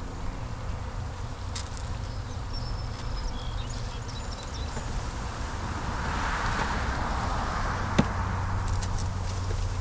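Italian honey bees from a package buzzing as a mass, the buzz swelling about six seconds in, with one sharp knock about eight seconds in.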